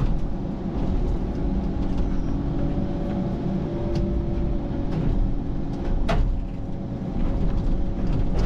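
Excavator's diesel engine running steadily under load, with a whine from the hydraulics and a few sharp clicks and knocks about four and six seconds in.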